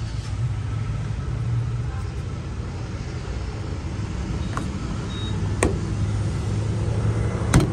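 Steady low engine rumble from vehicles, with a few sharp clicks as the truck's diesel filler cap is handled and screwed back on. The loudest click comes near the end.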